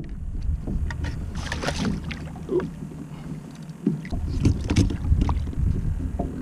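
Water sloshing against a kayak hull with wind buffeting the microphone, and a few short splashes from a hooked kingfish thrashing at the surface, strongest about one and a half seconds in and again around five seconds in.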